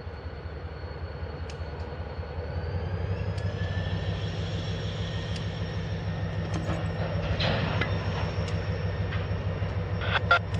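Diesel freight locomotive running at low speed with hopper cars, its engine hum growing louder about three seconds in, under a faint high whine and scattered sharp clicks from the train.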